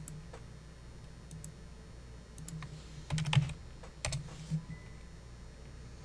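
Computer keyboard and mouse clicks: a few scattered sharp clicks, with a quick cluster about three seconds in and another pair a second later.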